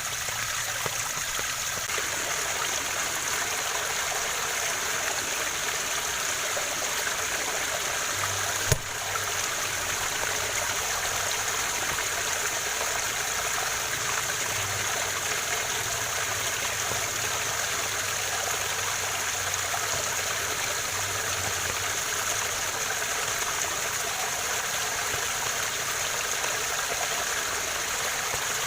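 Waterfall: a steady, even rush of falling and flowing water. A single sharp click sounds about nine seconds in.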